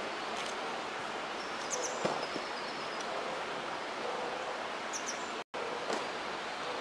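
Steady outdoor background noise beside the water, with a few faint high bird chirps about two seconds in and again near five seconds. The sound cuts out for an instant just after the second chirps.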